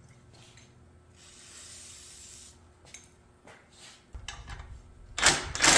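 Impact wrench starting to hammer on a rust-seized exhaust downpipe nut, in loud bursts beginning about five seconds in, after a stretch of faint clicks and handling noise.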